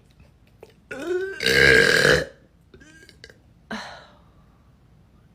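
A person letting out a loud, drawn-out burp that starts about a second in and lasts over a second, then a shorter second burp near four seconds in. It is a burp that had been held in.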